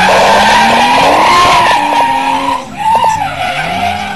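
Drift car sliding sideways through a corner, its tyres squealing and its engine revving high. About two and a half seconds in, the engine drops off briefly, its note falling, then revs up again with a fresh squeal before the sound fades as the car moves away.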